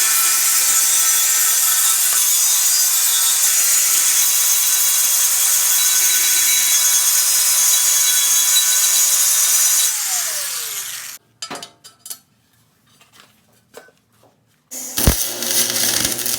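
Grinder grinding down a metal block, a steady loud run for about ten seconds. It is then switched off, and its motor winds down in a falling whine. A few light clinks and knocks follow.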